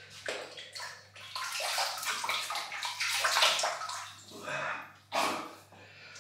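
Water splashing at a wash basin as a face is wetted with cupped hands before shaving, coming in uneven surges.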